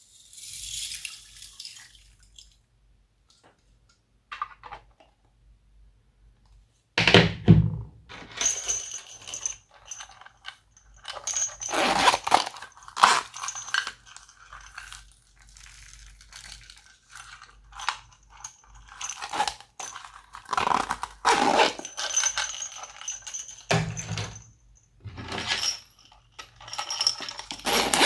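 Glossy slime being squished and mixed by hand with added bits, making irregular crackling and clicking sounds in bouts with short pauses.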